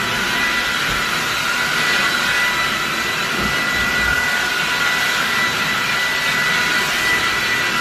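Steady rushing of air with a constant high whine, typical of a small electric motor blowing air.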